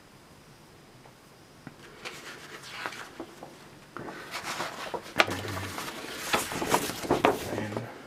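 A fold-out paper catalogue being handled and refolded. Quiet at first, then about two seconds in the paper starts to rustle and crinkle, growing louder with sharp crackles and taps from about four seconds in.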